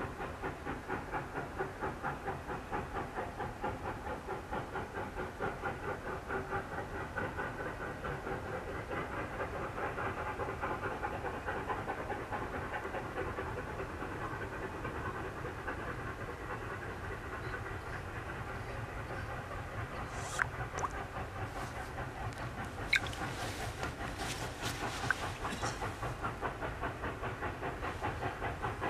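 Two Victorian Railways K class 2-8-0 steam locomotives double-heading up a grade under load, their exhaust beats in a steady, rapid chuffing rhythm. A few sharp clicks cut in about two-thirds of the way through.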